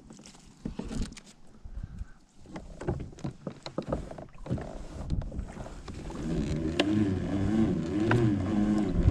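Scattered clicks and knocks, then about six seconds in a fishing kayak's pedal drive starts whirring as it is pedalled, its pitch rising and falling with each pedal stroke.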